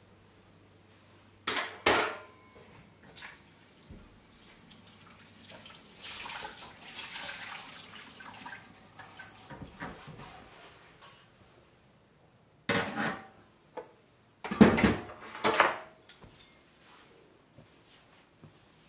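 Washing up at a kitchen sink: the tap runs for a few seconds in the middle, and kitchenware clatters and knocks against the sink and counter, a couple of knocks early on and a louder burst of clatter near the end.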